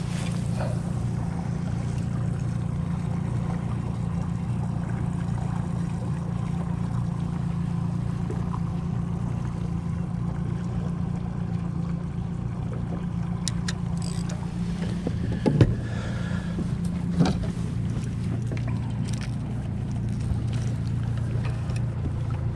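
Boat motor running steadily at trolling speed, a constant low hum. A couple of short clicks or knocks sound about two-thirds of the way through.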